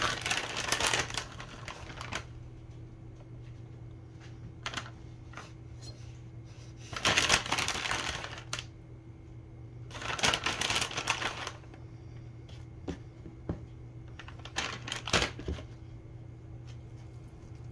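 Plastic bag of shredded mozzarella crinkling in three loud bursts, with small clicks and taps in between as the cheese is scattered by hand. A faint steady hum runs underneath.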